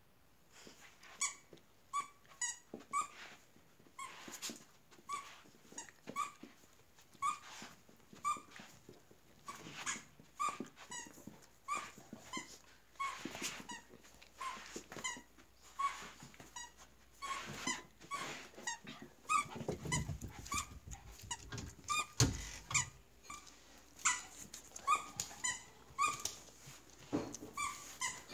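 A dog's rubber squeaky toy being chewed, squeaking over and over at about two squeaks a second, with a couple of low thumps about two-thirds of the way through.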